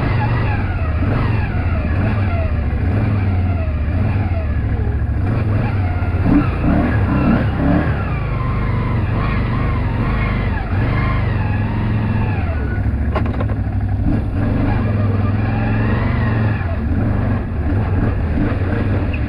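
ATV engines running continuously, their pitch rising and falling as the throttles are worked.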